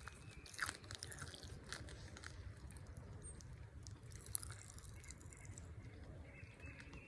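Faint chewing with scattered small crackling pops from a mouthful of sour Pop Rocks candy, a few sharper clicks standing out, over a low steady rumble.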